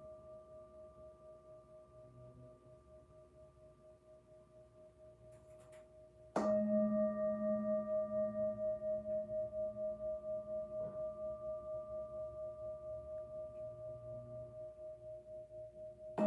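Hand-held brass singing bowl ringing with a slow wavering pulse, struck with a felt mallet about six seconds in and then slowly dying away; it is struck again at the very end.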